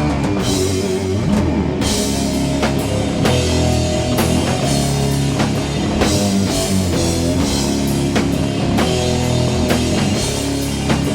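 Doom metal band playing an instrumental passage between vocal lines: heavy, distorted electric guitars and bass holding low notes over a steady drum beat with cymbal hits.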